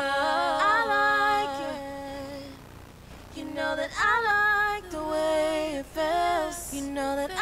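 A singer's voice singing several melodic phrases with long held notes. There is a short break about two and a half seconds in.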